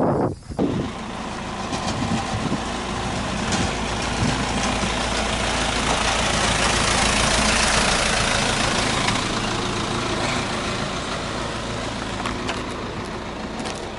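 Engine of a cab-over box truck running as it moves past close by, its noise swelling to a peak about halfway through and then slowly fading.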